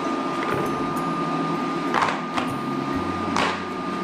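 Sliced mushrooms tumbling into a stainless steel pot of chicken and onions, then a silicone spatula knocking and scraping in the pot twice as the contents are stirred. A steady hum runs underneath, with a thin high whine that stops about halfway through.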